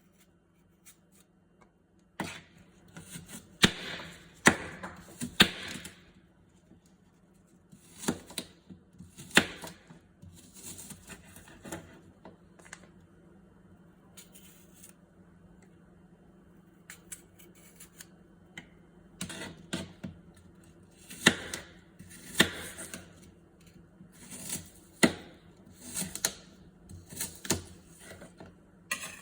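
Food-preparation handling sounds: irregular clusters of sharp taps and clicks of kitchen utensils, with quieter stretches between, over a faint steady low hum.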